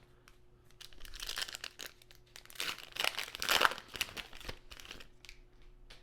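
Crinkling of a trading card pack's wrapper being handled, in two bursts, the second louder.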